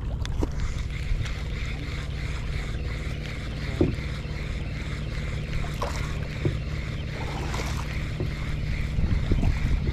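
Motorized outrigger boat's engine running steadily at low speed, a continuous low drone, growing a little louder near the end.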